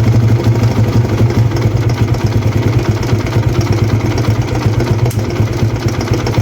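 TVS Apache RTR 160's single-cylinder engine idling with a fast, repeating tick ('dikki dikki dikki'): the timing chain slapping because of a worn cam-chain tensioner, a noise that a new tensioner cured.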